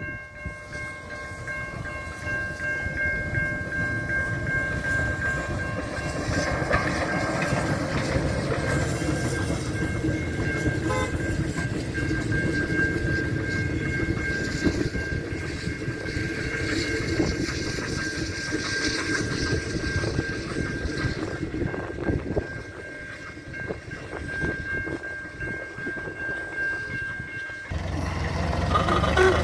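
Steam locomotive (Steamrail's R-class R761) passing a level crossing, its wheels clattering over the rails under a steady rumble, while the crossing's warning bells ring continuously. Near the end it cuts to a vintage car's engine running.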